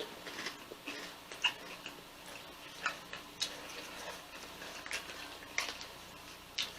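Faint, scattered crunching clicks of crunchy snack chips being chewed, a few irregular crunches every second or so.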